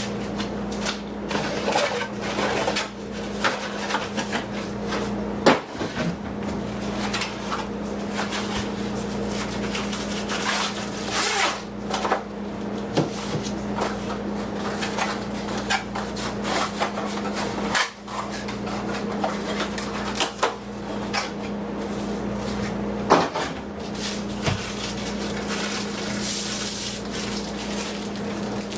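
Packaging and plastic vacuum parts being handled while unboxing: irregular rustling, clicks and knocks, with a few sharper knocks about five and a half seconds in and again near twenty-three seconds, over a steady low hum.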